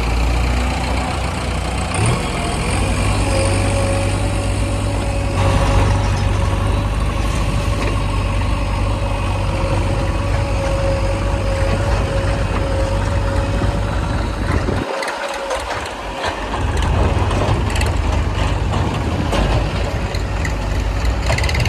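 Heavy diesel machinery engine running steadily under work. A steady whine sits over it from a few seconds in until about two-thirds of the way through. The low rumble dips briefly just after that, then picks up again.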